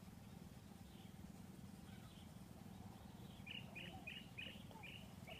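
Faint bird calls: a few scattered chirps, then a quick run of about six short high chirps in the last two seconds, over a low steady hum.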